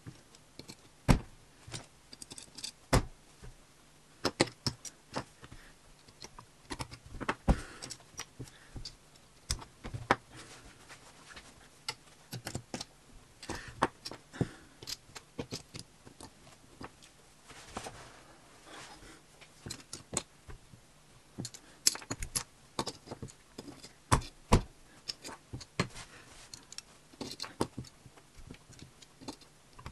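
Small plastic LEGO pieces clicking and rattling as they are picked up with metal tweezers, set down on the table and pressed together. The clicks come irregularly, with short stretches of soft rustling between them.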